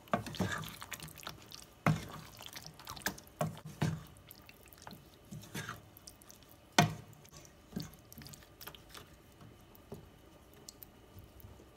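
Wooden spatula stirring chicken pieces through a thick tomato-yogurt curry gravy in a pan: wet squelching, with irregular knocks of the spatula against the pan, the loudest about two seconds in and again near the seven-second mark.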